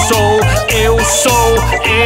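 Song music with a bass line, a pitched melody and a regular beat from a high percussion sound.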